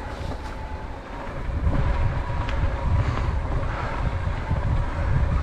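Wind buffeting the microphone, an uneven low rumble that grows a little louder about a second in, with a faint steady high tone underneath.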